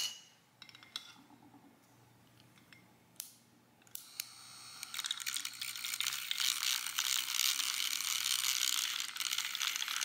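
Javy battery-powered handheld milk frother whirring in a glass mug of coffee, its whisk churning the drink. It starts about four seconds in after a few light clicks and taps, and runs steadily from then on.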